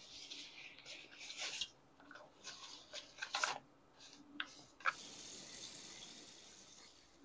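Nylon insulated lunch bag rustling and a food jar knocking as it is packed and the drawstring pulled, with two sharp clicks about four and five seconds in. After that, a steady faint hiss of a tap running while soapy hands are washed at the sink.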